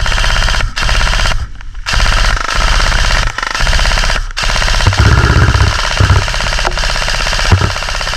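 Airsoft guns firing long full-auto strings of rapid clicks, broken by short pauses, with a few low thumps near the end.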